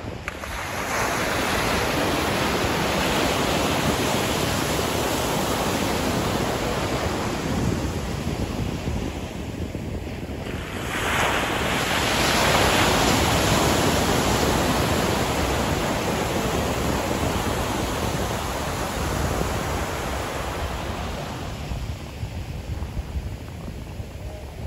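Ocean surf breaking on a sandy beach: a continuous rushing wash of waves that swells about a second in, grows loudest as a big wave breaks about halfway through, then eases off toward the end.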